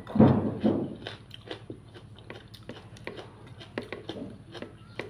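Close-up eating sounds: a loud bite or mouthful about a quarter second in, then steady chewing with many small wet mouth clicks and smacks.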